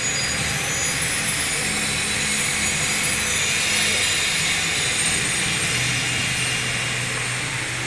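Steady murmur of a crowd chattering, with low sustained tones that change pitch every second or two underneath.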